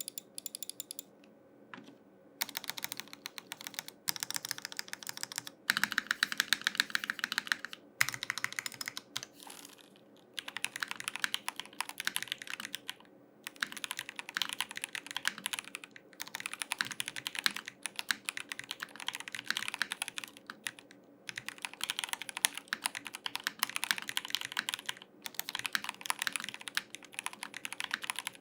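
Rexus DAXA M84x Ultimate mechanical keyboard with Gateron Red linear switches being typed on: fast runs of key clacks in bursts, broken by short pauses of a second or so.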